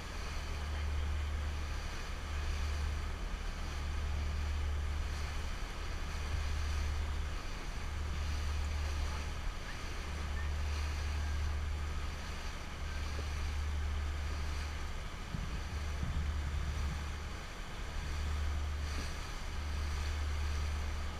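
Fishing boat under way at speed: wind rumbling on the camera microphone in uneven gusts over the steady rush of water along the hull.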